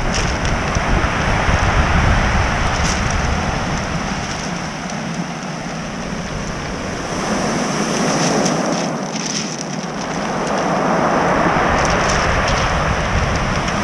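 Ocean surf breaking and washing up a pebble beach, swelling and easing over several seconds, with wind rumbling on the microphone that drops away midway and returns.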